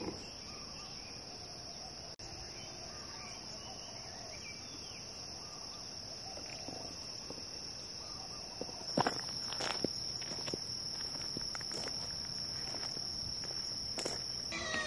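Steady high-pitched trill of insects. From about nine seconds in, footsteps crunch irregularly on a gravel track.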